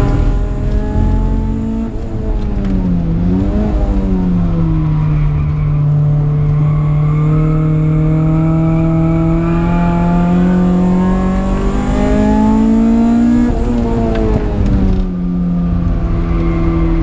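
Supercharged Honda K20 four-cylinder engine in a Civic, heard from inside the cabin at full work on a track lap. The engine note falls and swings up and down about two to four seconds in, then climbs steadily for about eight seconds before dropping sharply near the end.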